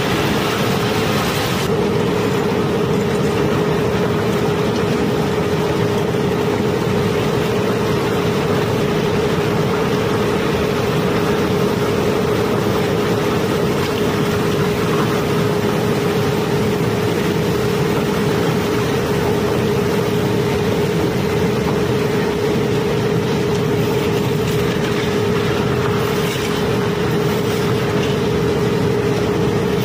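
Cobblestones flowing steadily from the bottom of a stone pile into a steel-sided conveyor trough: a continuous rattle of stone over a steady machine hum.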